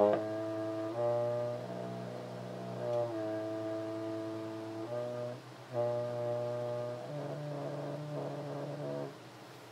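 A brass instrument playing a series of long, low held notes that change pitch every second or two. The last notes turn rough and buzzy before the playing stops about a second before the end.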